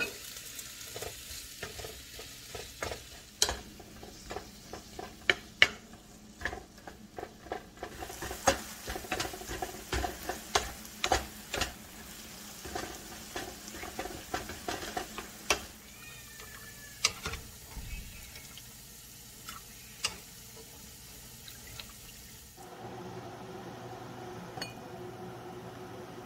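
Wooden spatula stirring diced tomatoes and garlic frying in a nonstick pan: a steady sizzle with many quick knocks and scrapes of the spatula against the pan. The stirring stops a few seconds before the end, and a steady hum takes over.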